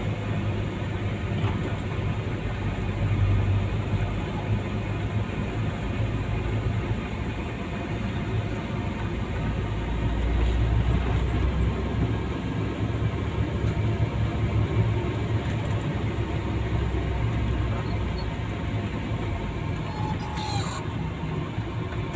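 Engine and road noise heard inside a moving vehicle's cabin: a steady low rumble.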